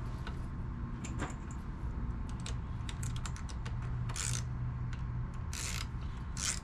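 Hand tools and small metal parts clicking and rattling irregularly during work on a lawnmower carburetor, with a few short hissing scrapes and a steady low hum underneath.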